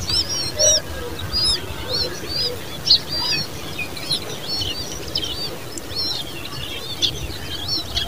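Common babblers calling: a steady stream of short, high chirps, several a second, over a low background rumble.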